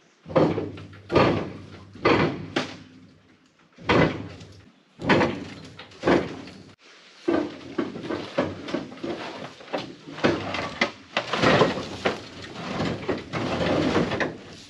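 Heavy steel dump-body parts banging and scraping against each other, in a string of loud clanks about a second apart, each ringing briefly. Near the end comes a longer grinding scrape.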